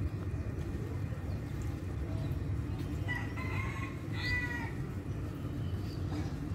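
An animal calls twice, two short pitched calls about three seconds in and again a second later, over a steady low rumble.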